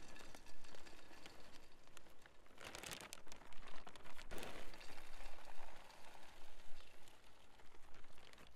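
Small brown clay granules poured from a plastic bag into a pot, pattering and rattling onto soil and onto each other, with the bag crinkling. The pour comes in surges, heaviest about three seconds and four and a half seconds in.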